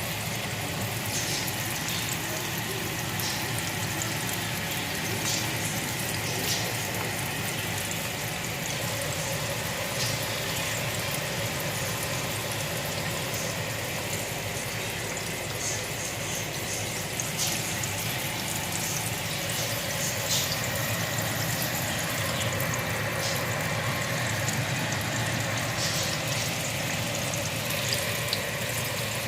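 Green tomato slices frying in hot oil: a steady sizzle with scattered sharp pops and crackles.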